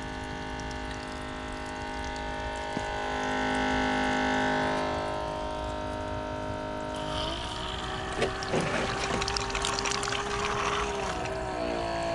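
Small electric water pump in an RC boat's cooling system running with a steady hum while it pumps water through the line and out of the hull's exit. About two-thirds of the way in its pitch steps up and holds, with water splashing for a few seconds, then the pitch drops back near the end.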